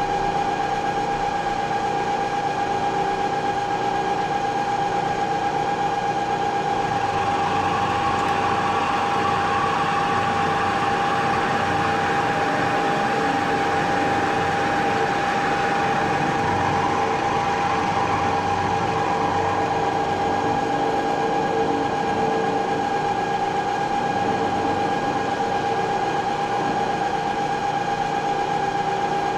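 Moore jig borer spindle running steadily at about 3,500 rpm with a high, even whine while a milling cutter takes a light cut across the square end of a lock screw held in a dividing head. A rougher cutting hiss builds about seven seconds in and fades out by about twenty seconds.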